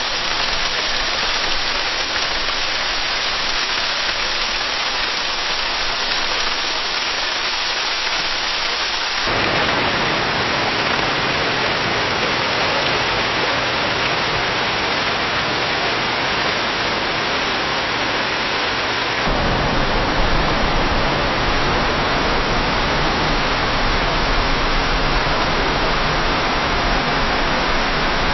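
Steady rain falling in a forest, a dense even hiss of drops. It changes character abruptly twice, about a third and two-thirds of the way through, as one rain recording gives way to the next, and the last stretch carries a deeper low rumble under the hiss.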